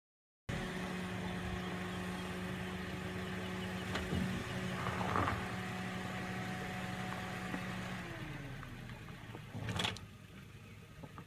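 Suzuki Jimny Sierra's 1.3-litre four-cylinder engine running steadily at low revs as the little 4x4 crawls over rocks. The hum fades about eight seconds in. There is a brief noisy burst about five seconds in and a single sharp knock near the end.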